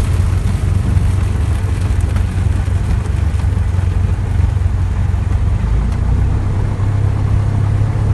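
Cessna 172's piston engine running steadily, a low drone with an even noisy hiss over it, its pitch shifting slightly about three-quarters of the way through.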